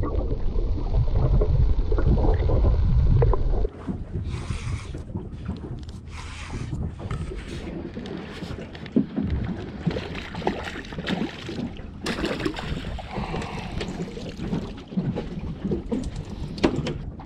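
Sounds aboard a small fishing boat: a loud low rumble for about the first four seconds that cuts off suddenly, then scattered small knocks, clicks and rustles.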